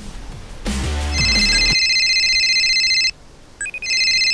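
Mobile phone ringing with a fast electronic trill: one ring of about two seconds, a short pause, then a second ring. It signals an incoming call.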